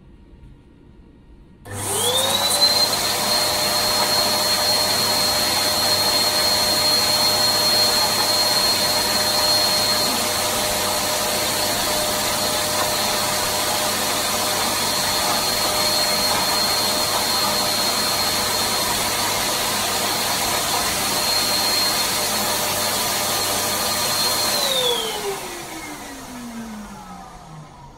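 Electric balloon pump switching on about two seconds in and running steadily with a high whine, blowing air through its hose into a latex balloon. Near the end it is switched off and winds down, its pitch falling.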